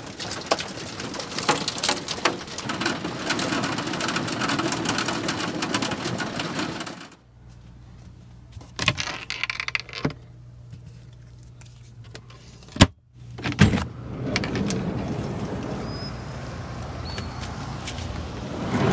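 Hail pelting the van's metal roof, a dense crackling patter that cuts off sharply about seven seconds in. A quieter stretch with a low steady hum and a few clicks follows, then the loud click of the van's door latch as its handle is pulled, and a steadier noisy patter returns.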